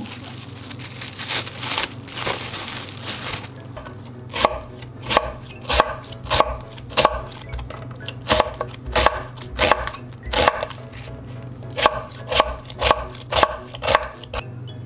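Knife chopping on a cutting board, evenly spaced strokes at roughly one and a half to two a second, with a brief pause partway through. A rushing hiss fills the first few seconds before the chopping starts, over a low steady hum.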